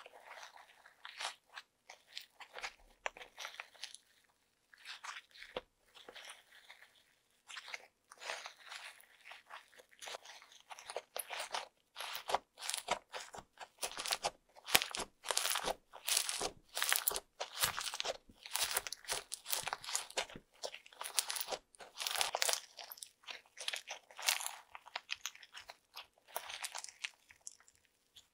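Hands kneading, squeezing and stretching fluffy slime with foam beads worked in, giving sticky crackling and crunching squishes in irregular bursts. The bursts grow thicker and louder after the first several seconds.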